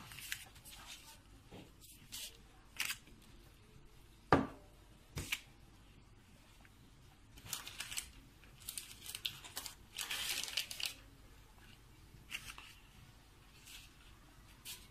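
Faint, scattered rustling and scraping of pastry dough being cut and shaped by hand, with a sharp knock about four seconds in and a longer rustle about ten seconds in.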